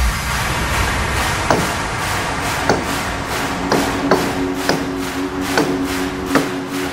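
Background music with a fast, steady beat and punchy drum hits that drop quickly in pitch, and a held low note coming in a little over two seconds in.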